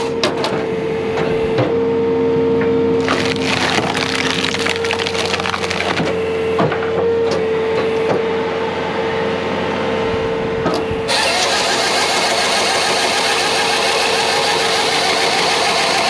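A log being forced through the splitting wedge of a Halverson HWP 150 skid-steer firewood processor, the wood cracking and splintering in sharp snaps. Underneath, the John Deere 317G compact track loader's engine runs under hydraulic load with a steady whine that stops about eleven seconds in, leaving the engine running on.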